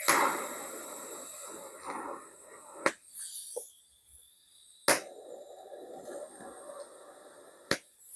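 TIG welding arc on steel strap, hissing steadily in two short tack welds, the first about three seconds long and the second about as long, each marked by a sharp click.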